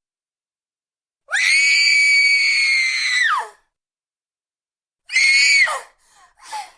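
A woman's high-pitched scream of terror, held for about two seconds and dropping in pitch as it ends. After a pause comes a shorter scream that falls in pitch, then two brief, fainter cries near the end.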